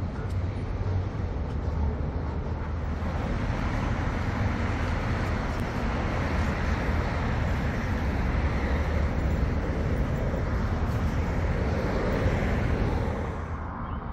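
Road traffic noise from passing vehicles, a steady rush that builds up over several seconds and eases off near the end.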